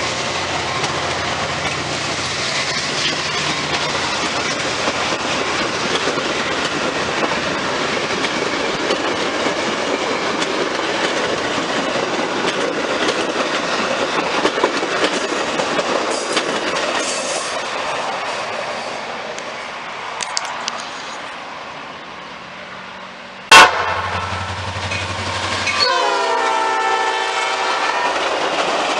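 Metra commuter train passing at speed, wheels clattering over the rail joints, the noise dying away after about twenty seconds. A single sharp, very loud bang comes about two-thirds of the way in. In the last few seconds a locomotive's horn sounds over renewed rail noise.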